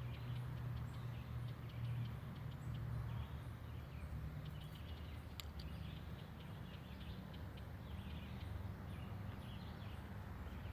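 Outdoor street ambience: a steady low rumble with scattered short, high bird chirps.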